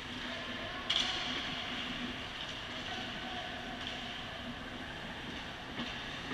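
Ice hockey play on an indoor rink: a steady scraping hiss of skates on ice, with one sharp clack about a second in and fainter knocks near four and six seconds.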